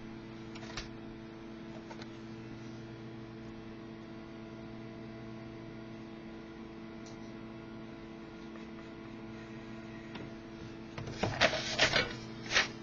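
A steady low electrical hum with several even overtones, a few faint clicks, and a cluster of short, louder noises about a second before the end.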